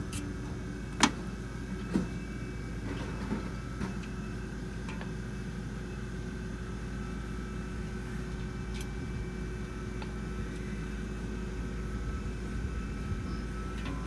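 Steady drone of machinery running, with two sharp metal clicks about one and two seconds in and a few fainter taps as hand tools meet the inserted teeth of a circular sawmill blade.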